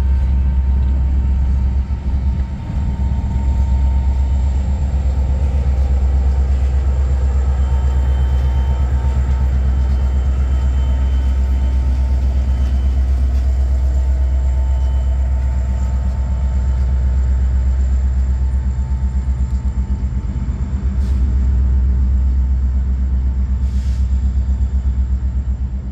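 Two EMD SD70ACe diesel-electric locomotives, pushing at the rear of a loaded coal train, pass slowly with their 16-cylinder two-stroke diesel engines making a steady low rumble and a faint whine above it.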